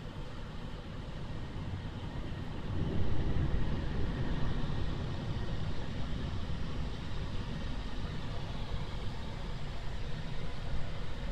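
Automatic car wash machinery running, heard from inside the car's cabin: a steady low rumble and rush that grows louder about three seconds in as the wash's water-spraying bar comes over the windscreen.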